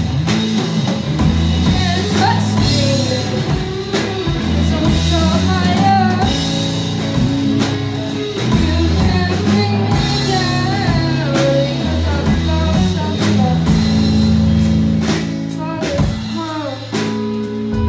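Live rock band playing: amplified electric guitars over a drum kit keeping a steady beat.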